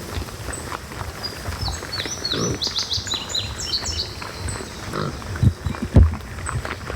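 Wild hogs grunting in short low grunts, with a quick run of high descending chirps in the middle and two loud low thumps near the end.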